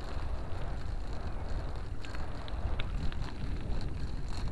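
Steady low rumble of a moving vehicle with wind buffeting the microphone, and a few faint short high squeaks about two to three seconds in.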